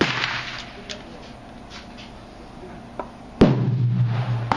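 A pump-action shotgun fires a slug about three and a half seconds in: one sharp blast, the loudest sound here, followed by a low ringing rumble for about a second. A sharp knock comes at the very start and another sharp crack near the end.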